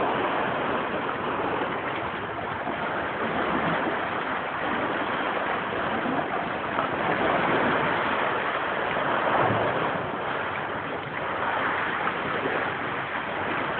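Ocean surf washing in: a steady rushing noise that swells and eases a little.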